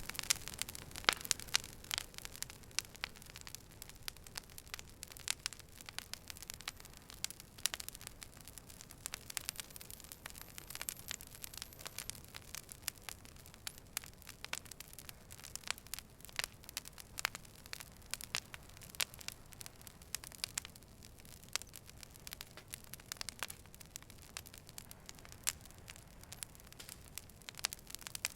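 Fire burning, with irregular sharp crackles and pops over a soft, steady hiss.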